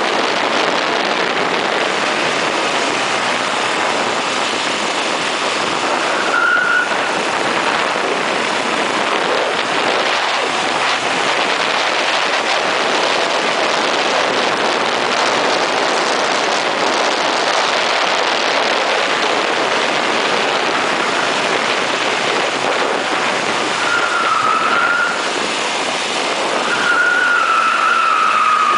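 1980 Ford Fiesta SuperSport driven hard around a race circuit, heard from a camera mounted low outside the car: a steady rush of wind and road noise over the engine. Short squeals, likely from the tyres in corners, come about six seconds in and again near the end.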